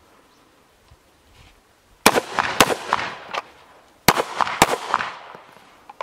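Gunshots: two shots from an AR-style carbine about half a second apart, then about two seconds later two pistol shots about half a second apart. Each crack rings out and dies away over about a second.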